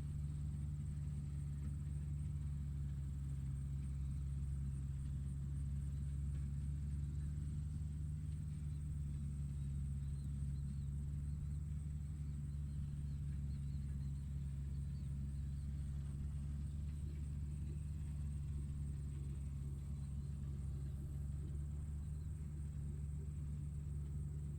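Tractor engine running steadily, a constant low drone with no change in speed.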